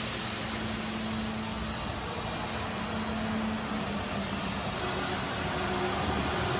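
Steady mechanical hum and hiss of machinery, with a faint low steady tone.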